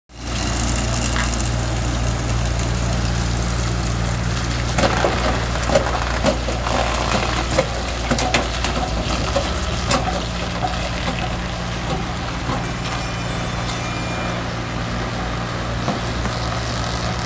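A heavy truck's engine running with a steady low hum, while a small Honda SUV caught under the back of its semi-trailer is dragged along. The car's body cracks and crunches against the trailer in a run of sharp snaps, mostly in the middle of the stretch.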